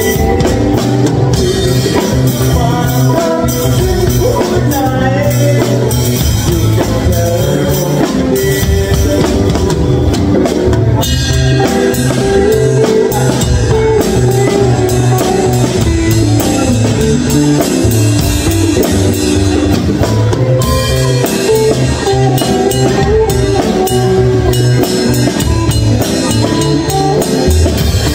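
Live band music: a drum kit played with sticks, with steady cymbal and drum strikes, over an electric or acoustic guitar. The cymbal playing gets busier about a third of the way in.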